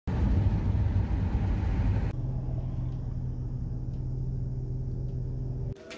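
In-car road noise from a car driving on a highway: a low rumble of tyres on pavement with engine drone. About two seconds in it changes abruptly to a quieter, steadier low hum, which cuts off shortly before the end.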